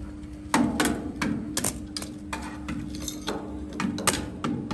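Irregular metallic knocks and clinks of metal pieces being handled and tapped, about half a dozen strokes, over a steady low hum.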